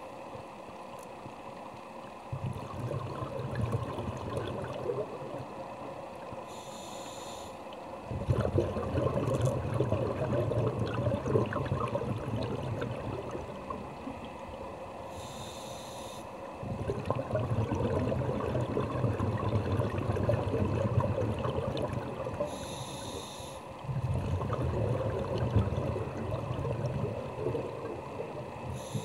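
Scuba diver breathing through a regulator underwater: a short hissing inhale about every seven to eight seconds, each followed by several seconds of bubbling exhalation.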